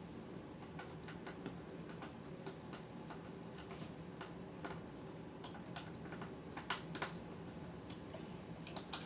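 Small Phillips screwdriver driving a tiny screw into a laptop's screen assembly: a run of light, irregular clicks and ticks, with two louder clicks about seven seconds in.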